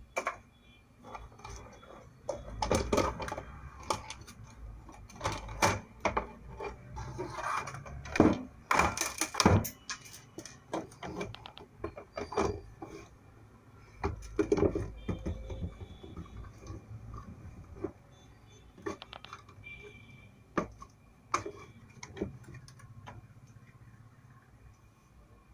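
The plastic housing of a Prestige induction cooktop being handled and taken apart: irregular clicks, knocks and clatter as the unit is turned over and its casing opened.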